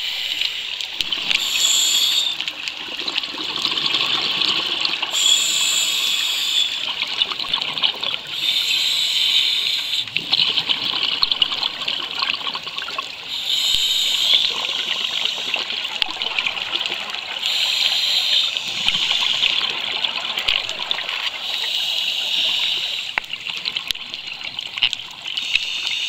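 Scuba diver breathing through a regulator underwater: a bubbling rush of exhaled air every four seconds or so.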